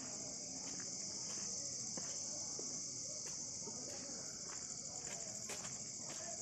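Steady, high-pitched chorus of insects, typical of crickets, with a few soft clicks.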